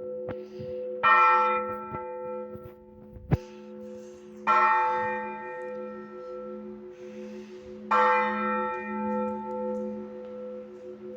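Blagovest on an Orthodox church bell: a single large bell struck three times, about three and a half seconds apart, each stroke ringing on and fading into the next. A sharp knock sounds just before the second stroke.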